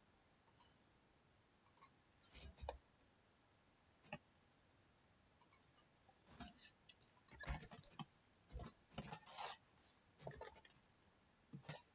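Computer keyboard being typed on: scattered faint key clicks in short clusters, busier in the second half.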